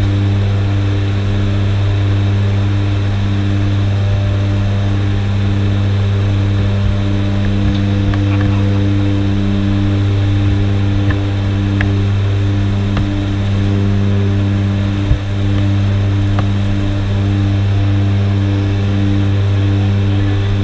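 Twin turboprop engines and propellers of a Short Skyvan droning steadily, heard inside the cabin, with a low hum and a beat that swells and fades about once a second. A single sharp knock comes about fifteen seconds in.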